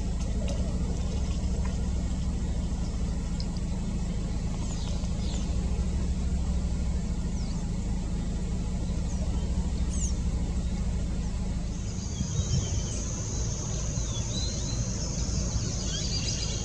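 Outdoor ambience dominated by a steady low rumble like a distant engine, with a few faint high bird chirps. About two-thirds of the way in, a steady high-pitched insect buzz like a cricket joins.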